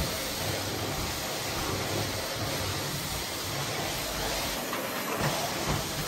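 Miele C1 Classic canister vacuum cleaner running steadily, a constant suction hiss as the floor tool is pushed over the hard floor, with a couple of light knocks near the end.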